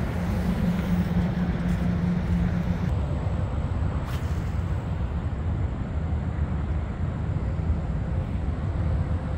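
Steady rumble of highway traffic, with a low hum through the first three seconds and a single sharp click about four seconds in.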